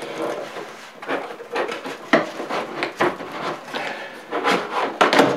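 Cardboard shipping box being pulled open by hand: the flaps and the packing inside scrape and rustle in a string of short, irregular sounds.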